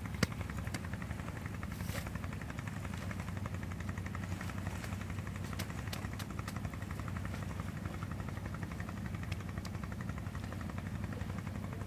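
An engine runs steadily with a low, even drone, under scattered light clicks and taps from camping gear being handled; the sharpest click comes just after the start.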